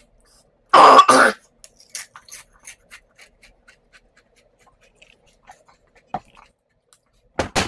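A man coughs hard, a double cough about a second in, his throat burning from ghost pepper chips. Faint scattered clicks and breaths follow, then another short burst near the end.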